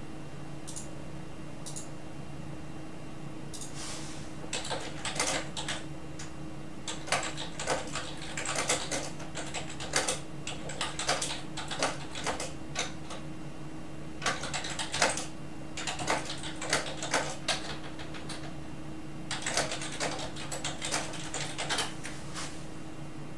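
Typing on a computer keyboard: several runs of quick keystrokes with short pauses between them, starting a few seconds in, over a steady low hum.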